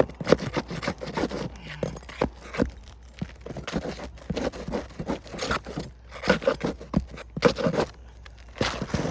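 Asphalt roof shingle being pried and pulled loose: repeated irregular scraping and crunching strokes of tool and shingle against the roof.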